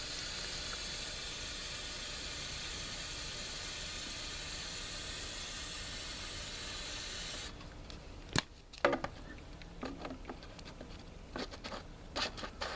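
Aerosol hairspray hissing steadily as it is sprayed into a potato cannon's combustion chamber, stopping sharply about two thirds of the way in. A single sharp click follows, then a run of light clicks near the end.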